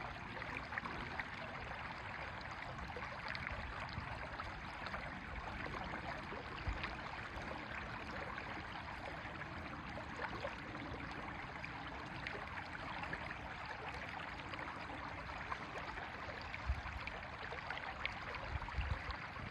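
River water flowing steadily, an even rushing and babbling with fine crackle. There are a few brief low bumps on the phone's microphone.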